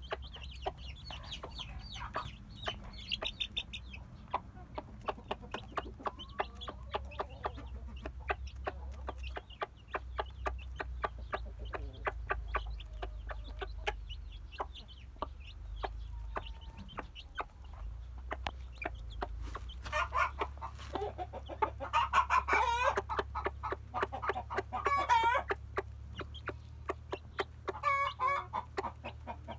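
Chickens clucking in a steady run of short calls, with louder, wavering calls from about twenty seconds in.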